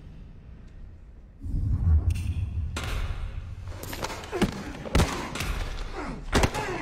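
Film fight sound effects: a heavy low thud about a second and a half in, then a run of sharp punches and impacts as two men grapple.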